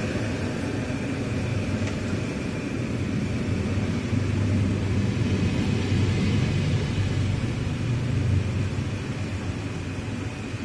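Electric multiple unit train running along the station platform: a steady rumble of wheels and running gear, with a faint steady high whine over it.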